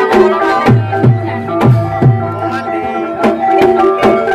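Javanese gamelan music accompanying an ebeg (kuda kepang) trance session: kendang drum strokes, a run of deep ones about a second in, over ringing sustained pitched tones.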